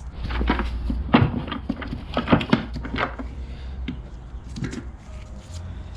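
Quick clicks and light knocks of a caliper being opened and set against a small part to measure it, thick in the first three seconds and sparser after, over a steady low hum.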